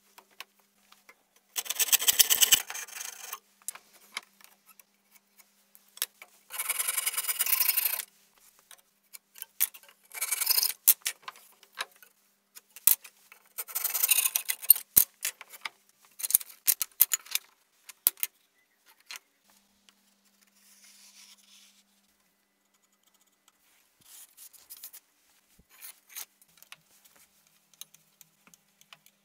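Thin wooden strip being worked by hand with an abrasive or cutting tool: four bursts of quick scraping strokes in the first half, then scattered clicks and knocks of the wood and tools being handled.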